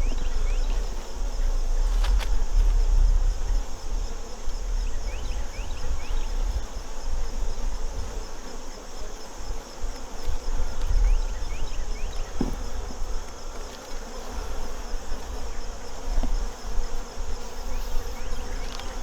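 Honeybees buzzing steadily around an open hive during a frame-by-frame inspection, over a low rumble.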